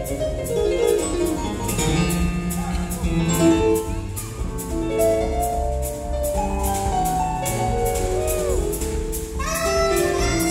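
Live jazz band playing: Yamaha keyboards and electric guitar over drums, with a steady beat.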